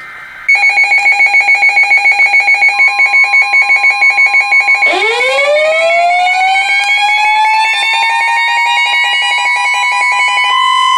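Electronic alarm beeping rapidly, about five pulses a second. About halfway through a second tone glides up from low and levels off, like a siren winding up. The beeping stops near the end, leaving the steady siren tone and a high whistle-like tone.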